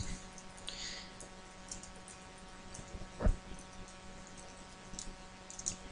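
Faint computer-keyboard typing, a few scattered keystrokes, over a steady low electrical hum, with one louder short knock about three seconds in.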